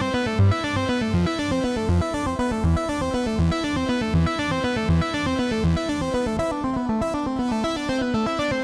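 Ethera Soundscapes 2.0 synth arpeggiator preset in Kontakt, played from a keyboard. It gives rapid runs of plucked-sounding synth notes that step through the chord over and over, over a low bass pulse about every three quarters of a second.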